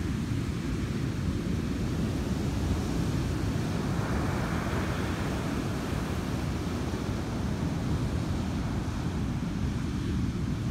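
Wind rumbling steadily on the microphone, with ocean surf washing in behind it; the surf hiss swells a little around the middle.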